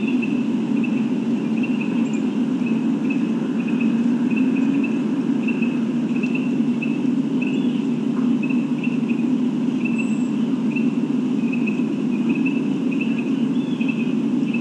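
Insect chirping, short high notes evenly spaced about every two-thirds of a second, over a steady low rumble.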